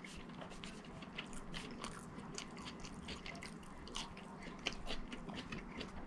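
A person chewing a mouthful of fast food: a rapid run of small clicks and smacks from the mouth, with a couple of louder ones about four and five seconds in.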